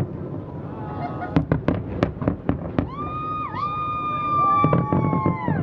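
Fireworks popping and crackling in rapid bursts. About three seconds in, a long, high, steady honk-like tone starts; a second, lower tone joins it, and both drop away near the end.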